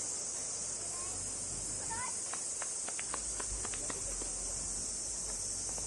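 Steady high-pitched insect chorus, with a few brief chirps and clicks about two to four seconds in.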